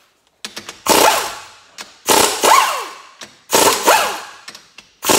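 Impact wrench hammering in four short bursts on the 14 mm cylinder head bolts of a 1994 Kawasaki Bayou 300 engine, loosening them. A few light clicks come before the first burst, and after each burst the tool's whine falls away.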